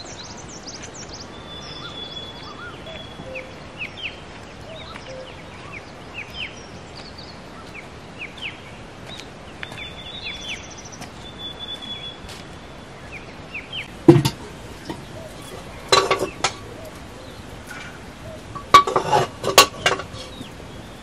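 Small birds chirping and whistling over a steady outdoor background. About two-thirds in, a thud, then metal clanks and clinks of a kettle and pots being moved about on a stone fire hearth, loudest near the end.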